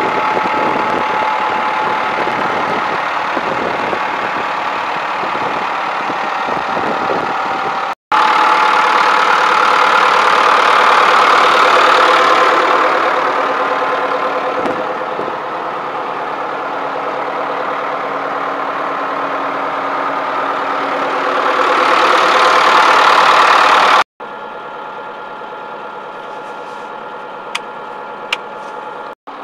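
Case 4240 tractor's diesel engine idling steadily, heard more quietly toward the end from inside the cab. Two sharp clicks of the 4WD and diff-lock rocker switches come near the end.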